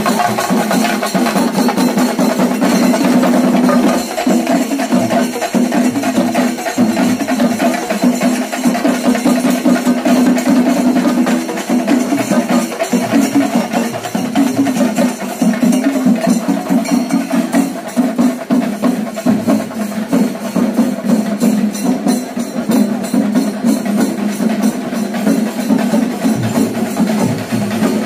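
Festival drum ensemble playing a fast, dense, unbroken rhythm over a steady held tone, the kind of procession percussion that accompanies the elephants' entry.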